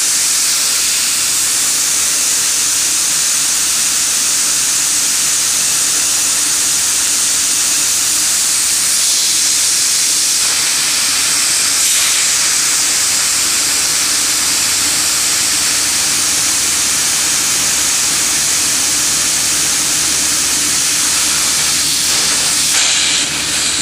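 Pressurised nitrogen escaping from an air-conditioning system's refrigerant lines through the manifold gauge hoses: a loud, steady hiss. The nitrogen is being bled off before the system is put on the vacuum pump.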